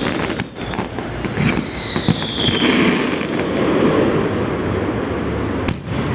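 Fireworks display going off: a dense run of bangs and crackling, with a high whistle gliding down in pitch about two seconds in.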